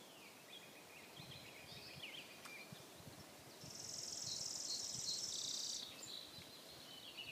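Small birds chirping outdoors, with a high, dry buzzing trill lasting about two seconds midway, the loudest sound; a few soft low thumps underneath.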